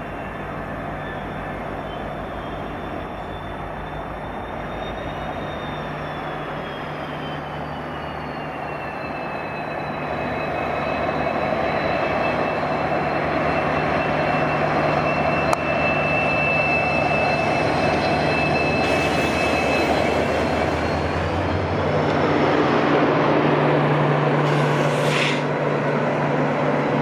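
Railway locomotive running, growing louder as it comes closer. It has a steady low hum and a thin high whine that slides down in pitch and later back up. A short hiss comes near the end.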